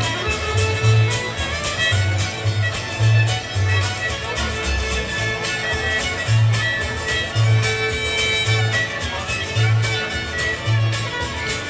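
Instrumental break of a live band's song: fiddle lead over strummed guitar, with a bass picking out a steady run of low notes.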